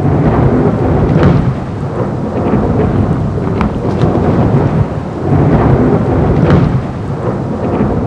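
Heavy rain with rolling thunder, the rumble swelling about a second in and again about five and a half to six and a half seconds in.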